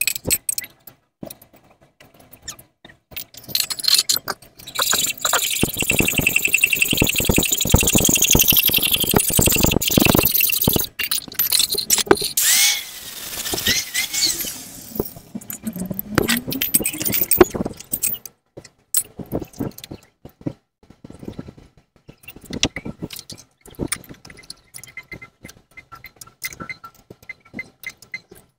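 Handheld power tool grinding metal for several seconds, then a squeal that glides up and down for a few seconds, followed by light clinks and taps of metal parts being handled.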